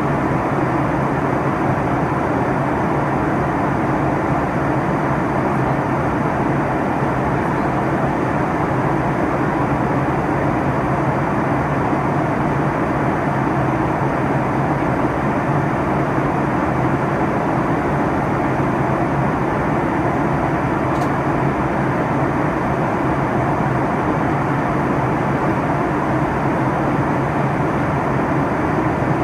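Steady cabin noise of an airliner in flight: engine and airflow noise heard from inside the cabin, even and unchanging.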